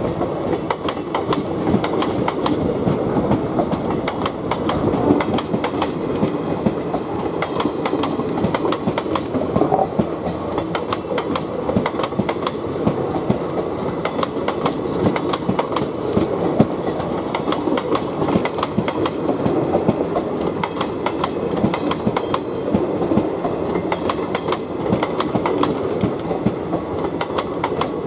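Indian Railways sleeper-class passenger coaches rolling past at close range. Steel wheels give a steady rumble on the rails, with a continuous rapid clatter as they cross rail joints.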